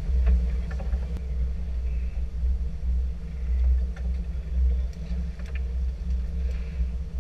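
Low rumble of a fishing boat's engine running, swelling and dipping in level, with a few faint clicks over it.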